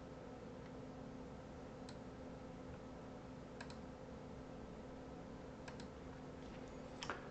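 A few faint computer mouse clicks, spaced about two seconds apart, some in quick pairs, over a steady low electrical hum and hiss.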